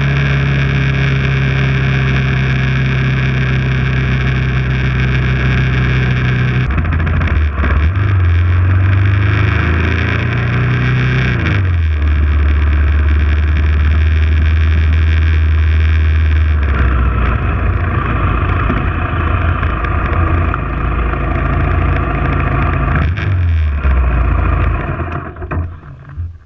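BMW F650 motorcycle engine running under way with wind rush. The engine note drops suddenly about seven seconds in, climbs for a few seconds, then drops again. Near the end the engine eases off and the sound falls away as the bike slows.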